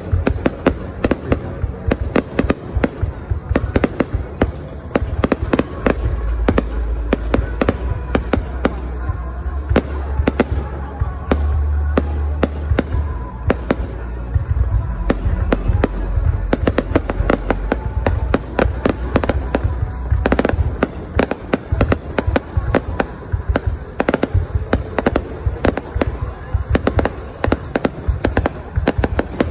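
Aerial fireworks bursting overhead: a dense, continuous run of sharp bangs and crackles, many each second, with a low rumble underneath through the middle.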